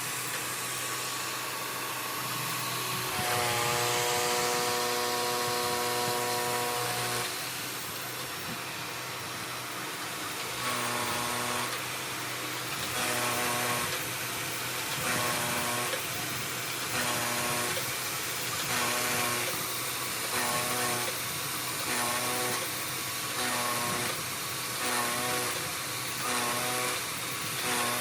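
CNC knee mill cutting a 3D adaptive clearing toolpath, with the spindle and axis drive motors whining. A steady whine in the first several seconds gives way, after about ten seconds, to a whine that swells and drops about every second and a half as the cutter loops through the cut.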